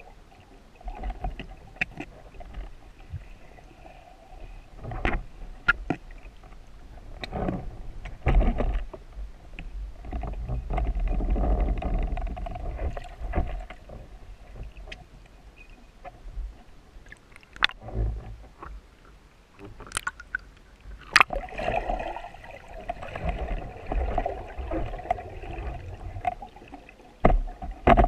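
Muffled underwater water noise picked up by a speargun-mounted camera in its housing: low swells of rushing water as a freediver swims, with scattered sharp clicks and knocks.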